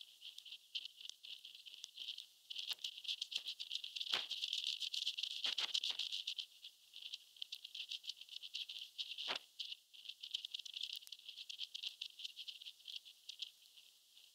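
Continuous, irregular high-pitched rattling and clicking from a high-altitude balloon payload in flight, with a few louder knocks.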